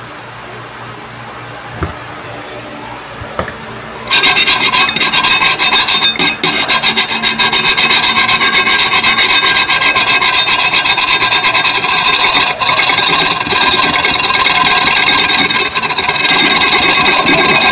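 Loud, harsh, rasping screech that cuts in abruptly about four seconds in and runs on with a rapid flutter and a few short dips.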